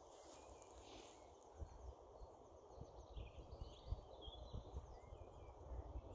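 Near silence outdoors, with faint low wind rumble on the microphone and a few faint bird chirps.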